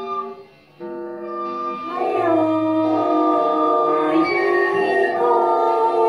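Music of layered, held tones that thins out briefly near the start, then swells from about two seconds in with a melody sliding between notes like a singing voice.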